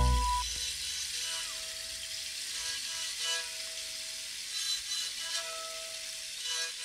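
Small gourd-bodied spike fiddle being bowed: thin, held notes that change every second or two, with plenty of scratchy bow noise.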